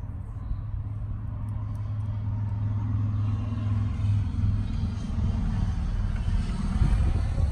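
A motor vehicle's engine running: a steady low rumble that grows gradually louder.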